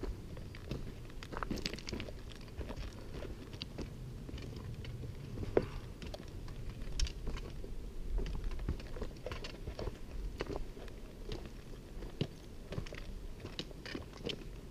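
Hikers' footsteps crunching on a rocky dirt trail, an irregular run of crunches and small clicks over a low rumble, with one sharper knock about halfway through.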